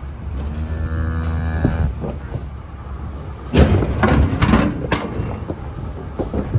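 Holstein cattle in a metal livestock trailer: one low moo lasting about a second and a half near the start. A burst of loud clattering knocks follows about halfway through, over a steady low engine rumble.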